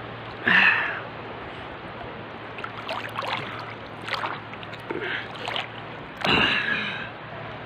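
Seawater sloshing and lapping right at a phone held just above the surface by someone in the water, with two louder short bursts, about half a second in and again about six seconds in.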